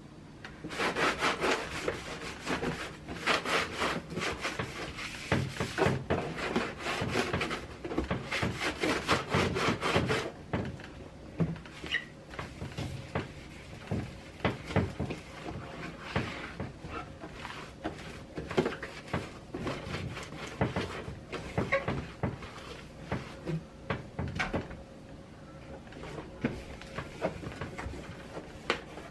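Fridge surfaces being scrubbed by hand: rapid back-and-forth rubbing for about ten seconds, then scattered short knocks of things being handled and set down.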